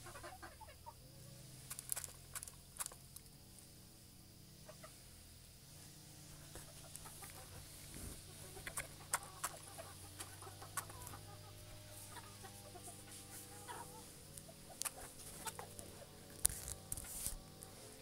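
Rooster clucking softly, with scattered sharp clicks and taps, over a low steady hum.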